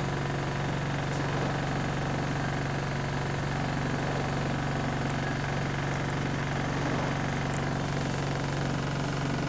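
Go-Ahead London bus SE103's diesel engine running at a steady idle, heard from inside the passenger saloon as a constant low hum with no change in pitch.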